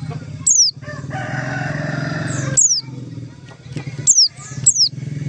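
A pleci (white-eye) gives short, sharp, high call notes that fall quickly in pitch, four times. Between the first two notes a rooster crows for about a second and a half, and a steady low hum runs underneath.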